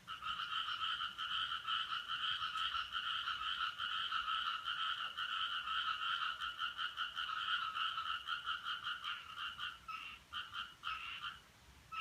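A rapid, pulsing croak-like trill at two steady pitches, running unbroken for about nine seconds, then breaking into short bouts near the end. It is an unfamiliar call that the uploader suspects may be a frog.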